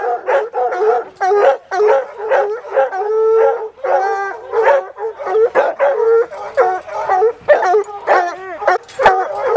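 Several bear hounds on leashes baying and barking, a dense string of short barks mixed with longer howling bawls. The hounds have just been caught off a bear chase and are still worked up.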